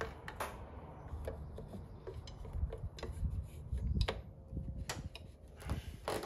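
Irregular light clicks and taps of hand tools and metal parts being worked during a fuel bowl installation, over a low rumble of handling.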